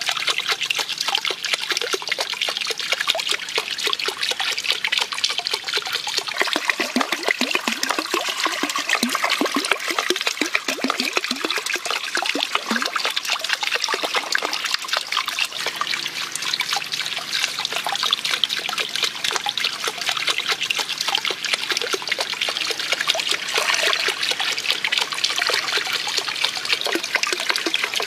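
Water trickling and splashing steadily from bamboo spouts into a shallow pool.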